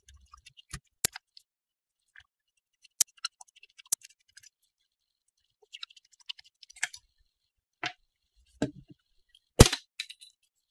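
Scattered sharp clicks and taps of small hand tools, a pin-vise hand drill and side-cutting pliers, being handled against a wooden craft stick and tabletop. The loudest click comes about a second before the end.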